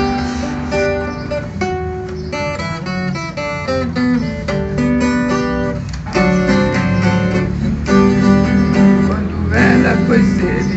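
Viola caipira, the Brazilian ten-string guitar with five double courses, played solo in an instrumental passage: plucked melody notes, a quick run of single notes about two seconds in, then fuller strummed chords from about six seconds in.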